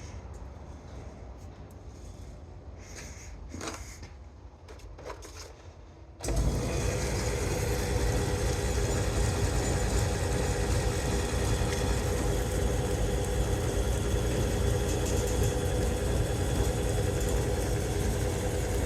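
A few faint clicks, then about six seconds in a 1934 South Bend Model C lathe is switched on and runs under power with a steady mechanical hum and a steady tone. The spindle is turning true, with almost no run-out.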